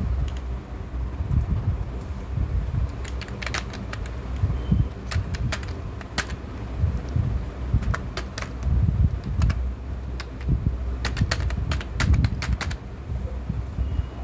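Computer keyboard typing: irregular keystroke clicks in short runs, over a steady low background rumble.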